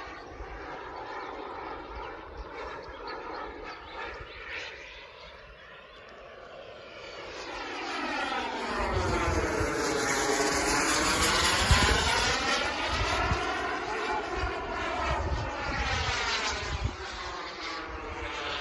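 Kingtech 100 gas turbine of a model Scorpion sports jet running in flight as the jet passes overhead. The whooshing engine sound grows louder to a peak about halfway through, then eases off. Its hollow tone sweeps down and back up as it goes by.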